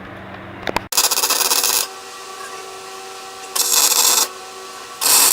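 Arc welder laying tack welds inside a Chevy S10 differential to lock it: short bursts of crackling arc about a second in, again near four seconds, and once more just before the end, with a steady hum between them.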